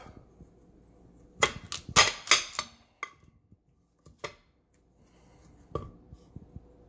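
Kitchen knife cutting a peeled sweet potato and knocking against the plate beneath: a quick cluster of sharp knocks about a second and a half in, two more a little later and a last one near the end.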